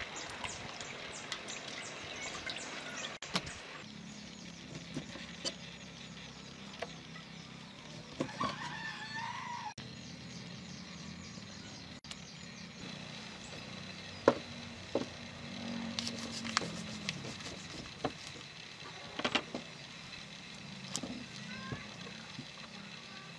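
A rooster crowing once, about eight seconds in, over steady background noise, with scattered sharp knocks and clicks of kitchen work and a low drawn-out hum about sixteen seconds in.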